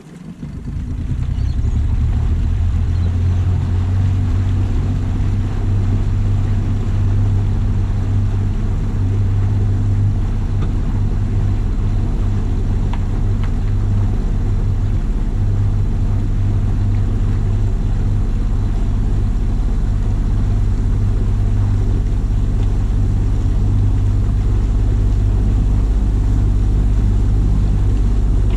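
Motorboat engine coming up from idle over the first second or two, then running steadily under way with a deep, even drone.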